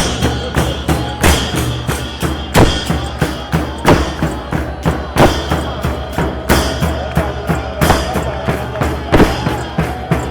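Drums playing a steady, driving beat, with a heavy stroke about every second and a quarter and lighter hits in between.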